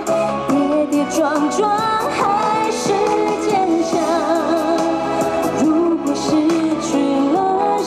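Live pop song played through the stadium speakers: a woman singing a melody with vibrato over a backing track.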